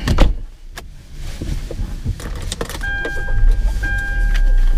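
Sounds inside a car's cabin: a loud knock just after the start, typical of the car door being shut. From about three seconds in, a steady electronic warning tone sounds with brief breaks, over a low rumble that grows louder toward the end.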